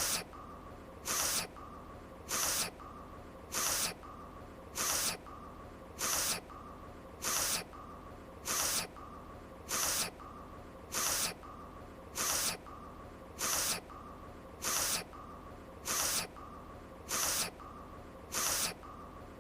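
Anime voice clip of a woman's sniffle, looped so that one short sniff repeats evenly about every 1.2 seconds, sixteen times, with a faint steady tone between sniffs.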